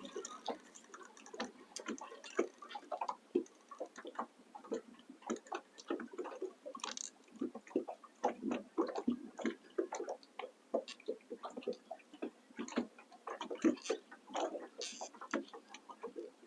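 Faint, irregular clicks and light taps, a few a second, with no steady rhythm.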